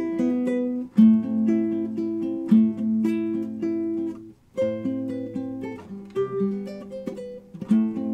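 Classical acoustic guitar played fingerstyle, its notes picked one after another in flowing arpeggios, with a brief break about four seconds in.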